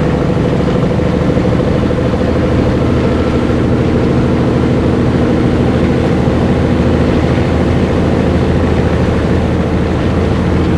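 1984 Peterbilt 362 cabover's diesel engine running steadily as the truck drives along, with an even, unbroken engine note.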